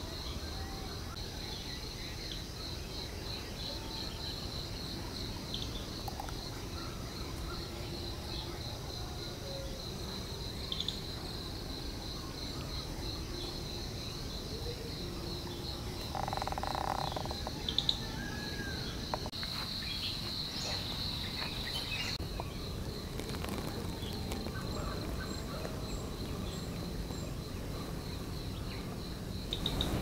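Crickets chirping in a steady, fast, high-pitched pulsing trill over a low background hiss. A short hum-like tone comes a little past halfway, followed by a couple of sharp knocks.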